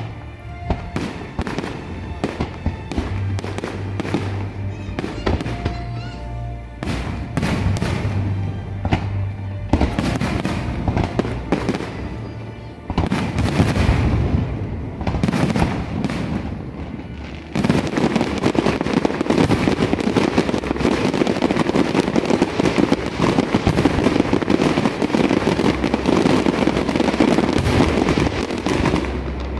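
Aerial fireworks display: repeated sharp bangs and crackling bursts that thicken about halfway through into a dense, continuous barrage of bangs and crackle, with music playing underneath.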